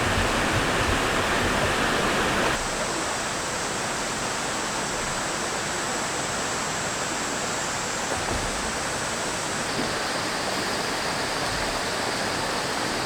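Mountain stream rushing steadily close by. The rush is a little stronger for the first two and a half seconds, then holds steady.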